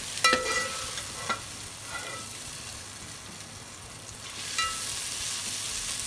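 Sliced onions sizzling in hot oil in a steel pot while a metal slotted spoon stirs them. The spoon clinks against the pot several times, each clink ringing briefly. The sizzle grows louder about four seconds in.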